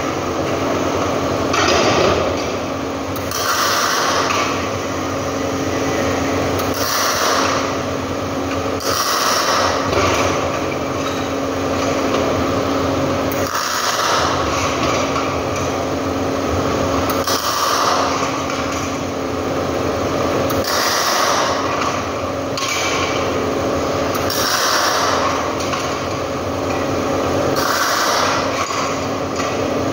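Short welding-arc tacks on thin sheet metal: about ten separate bursts of arc hiss, each about a second long, one every three seconds or so. A steady machine hum runs underneath.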